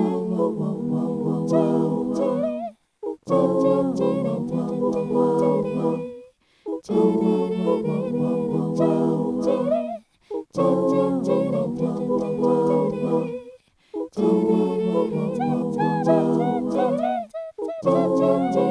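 Music: wordless layered singing over held chords, a short phrase repeated about five times with a brief break after each.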